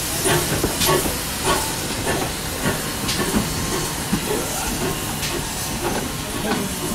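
GWR 0-6-0 pannier tank steam locomotive moving off slowly, with a steady hiss of escaping steam and irregular clanks and knocks from its wheels and motion.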